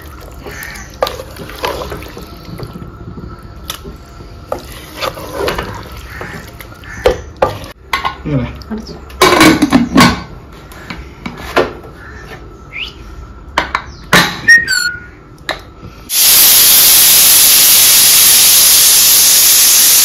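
Spoon scraping and clanking in an aluminium pressure cooker and its lid being fitted, then, about sixteen seconds in, the Prestige pressure cooker's weight whistle blowing off steam in a loud, steady hiss lasting about four seconds. The whistle is the sign that the cooker has come up to pressure, and whistles are counted to time the chicken's cooking.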